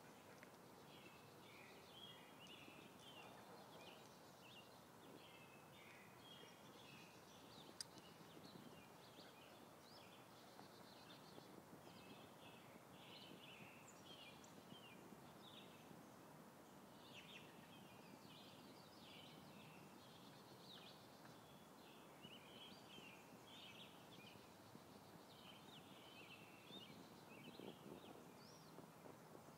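Faint birdsong: many short chirps and calls from several songbirds, almost without a break, over a low steady background hiss. A single sharp click about eight seconds in.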